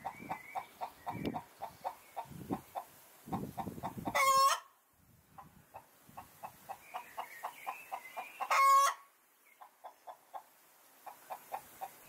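Chickens clucking in quick, short repeated calls, about three to four a second, with a rooster crowing loudly twice, about four seconds in and again near nine seconds.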